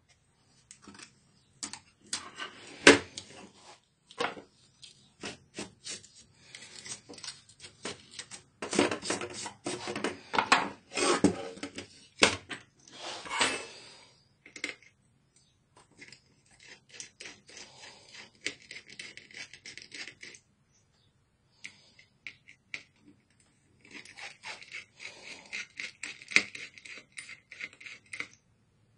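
Clicks, taps and scrapes of small metal and plastic parts as a netbook motherboard is handled on a wooden tabletop and its cooling fan and heatsink are worked loose. The clicking comes thickest in the middle, with quieter scratching later on.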